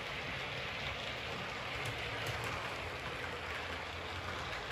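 Heljan OO gauge Class 25 model diesel locomotive and its coaches running along the layout track: a steady rumbling hiss of the train on the rails, with a few faint clicks.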